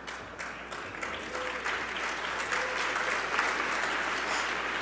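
Audience applauding, a dense patter of many hands clapping that builds and is loudest about three to four seconds in.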